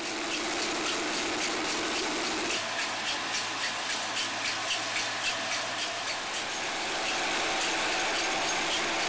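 Small motor-driven grain mill running steadily as grain is fed through it, with a regular light ticking rattle about twice a second.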